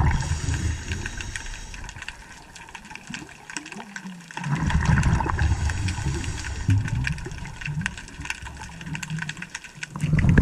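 A scuba diver breathing on a regulator underwater: exhaled bubbles rumble in long bursts about five seconds apart, with quieter stretches and faint clicks between.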